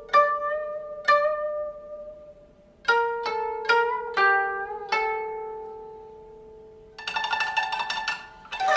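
Background music on a plucked string instrument: single notes ring out and fade, a few to the phrase. About seven seconds in comes a quick run of rapidly plucked notes lasting a second and a half.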